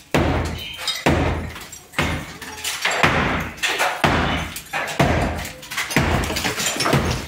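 Hammer blows knocking ceramic wall tiles and brick out of a masonry wall, about one strike a second, some eight in all. This is demolition to enlarge a window opening.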